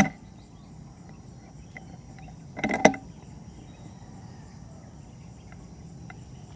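Steady high-pitched insect buzzing from crickets in the background, with a brief cluster of sharp clicks about two and a half seconds in.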